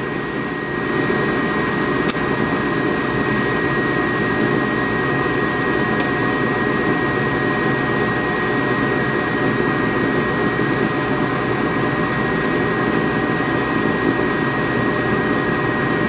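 Gas furnace's forced-draft combustion blower running steadily, joined about a second in by the burners lighting, which brings a slight step up in the steady rushing noise as the furnace fires and the gas valve comes up to manifold pressure. A thin high tone runs through it, and there are two faint clicks.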